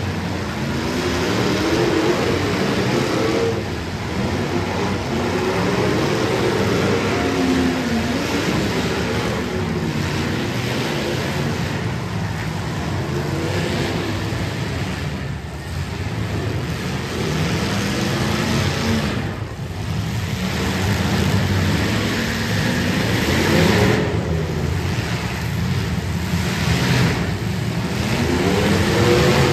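Engines of several demolition derby cars running and revving up and down over and over, their pitch rising and falling in repeated swells over a steady engine rumble.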